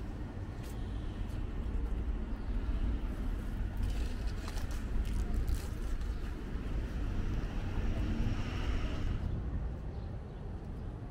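Steady low rumble of a car engine, with a hiss that swells in the middle and fades near the end.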